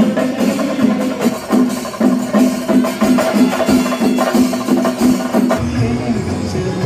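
Kerala temple-festival ensemble music: rapid, dense drum strokes under a held wind-instrument note that breaks off and restarts again and again. A deeper sound joins near the end.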